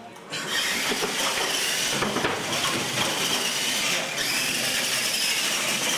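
R/C monster trucks launching and racing side by side down a concrete floor: motor whine and tyre noise that start abruptly about a third of a second in and run on steadily.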